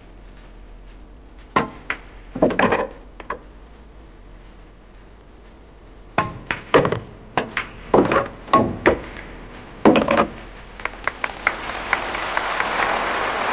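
Pool balls clacking on a billiard table: cue strikes and balls colliding in scattered groups of sharp clicks. Near the end, applause swells up.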